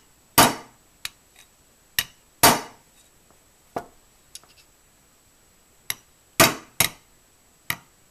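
An improvised hammer tapping a pin into an AR-15 lower receiver: about ten irregular sharp metallic strikes, a few of them louder with a brief ring.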